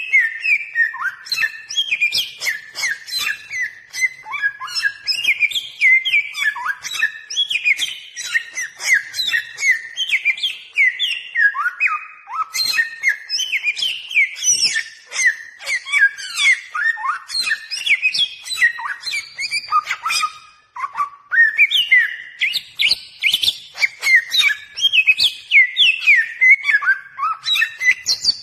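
Bare-throated whistler (samyong) singing a rapid, unbroken stream of short whistled notes that sweep up and down in pitch, pausing briefly about two-thirds of the way through. This is the kind of song used as a lure call for trapping.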